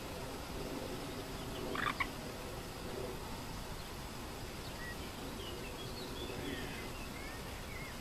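Small birds chirping faintly over a steady background hiss, with one louder, short bird call about two seconds in.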